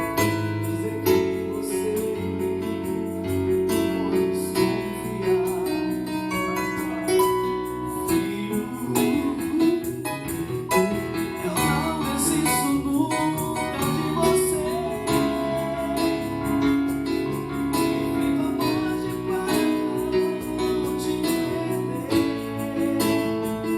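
Small gospel band playing a song: keyboard chords, bass, cajón and tambourine keeping a steady beat, with a voice singing over them.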